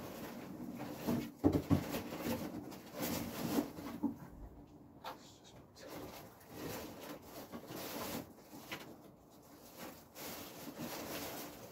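Soft, irregular handling noises of objects being moved about, with a couple of sharper light knocks about a second and a half in.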